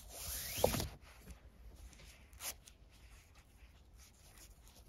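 Nylon paracord being drawn through a loop of cord: a rising rubbing hiss lasting under a second, then faint handling of the cord with a single click about two and a half seconds in.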